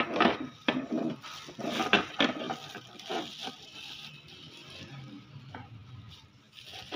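Handling noise: metal wall-mount brackets knocking on a TV's plastic back panel and a plastic bag of mounting screws crinkling. Scattered knocks and rustles, the sharpest near the start and around two seconds in.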